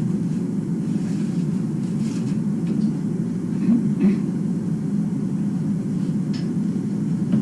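A steady low rumble with a few faint, short clicks through it.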